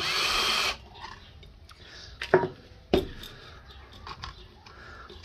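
A hand screwdriver and the metal cover of a Clarkston II ceiling fan's motor housing being worked as the cover's last screw comes out. A short scraping rasp opens the sound, two sharp clicks follow about two and three seconds in, and then comes quieter handling of the housing.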